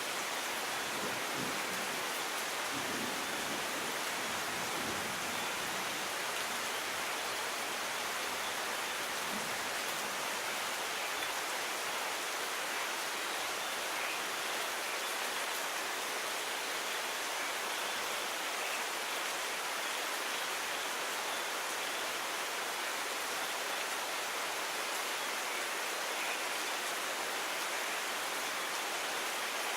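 Steady rain: an even hiss of falling water that never breaks or changes.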